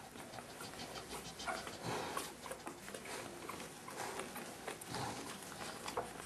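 Five-day-old Staffordshire Bull Terrier puppies giving a few short squeaks and whimpers, over the rustle of bedding and fur as a hand handles the litter.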